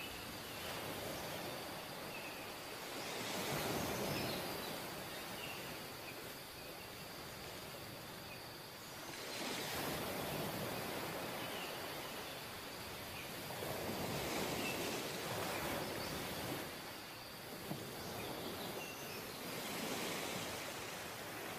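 Sea surf breaking and washing up a sandy beach, the rush swelling and falling about every five seconds as each wave comes in.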